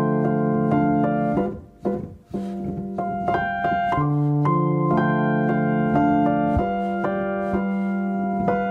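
Solo piano background music, sustained chords changing every second or so, with a brief quiet dip about two seconds in.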